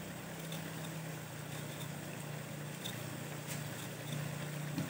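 Mushroom curry simmering in a wok with a faint sizzle and a few small ticks, over a steady low hum.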